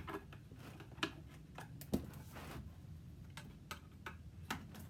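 Hand-held staple remover prying upholstery staples out of a wooden chair frame: a series of scattered sharp clicks and snaps, about half a dozen, as each staple is levered loose.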